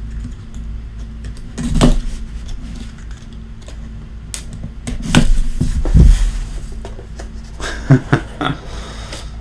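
A small utility knife slicing through the shrink wrap and seal of a cardboard trading card box. Sharp knocks and rustles come from the box being handled and opened, the loudest about 2 s and 6 s in.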